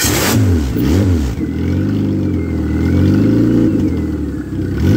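1999 Neon 2.0 L SOHC four-cylinder on an engine test stand, just started and running through a stubby header, its revs rising and falling twice in the first second or so before settling. It won't settle into an idle, which the owner puts down to too much fuel pressure with no fuel pressure regulator fitted.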